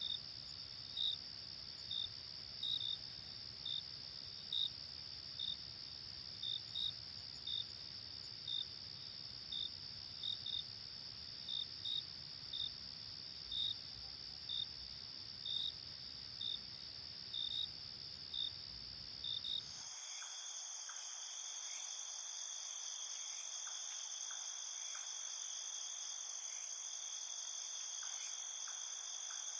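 Crickets at night: a steady high insect trill with separate louder chirps about once or twice a second. About twenty seconds in, the sound switches abruptly to a different, higher chorus of trilling insects, and the low background rumble drops out.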